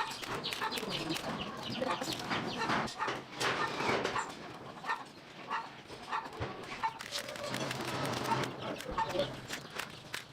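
Chickens clucking, many short calls scattered throughout.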